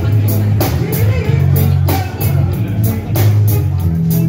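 Rock-style band music with drum kit, bass and guitar playing a steady beat, cymbal strokes regularly on top.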